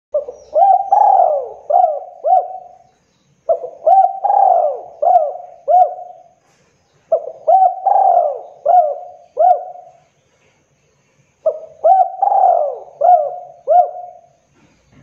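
Spotted dove cooing: four phrases about three and a half seconds apart, each a run of about five rising-and-falling coos.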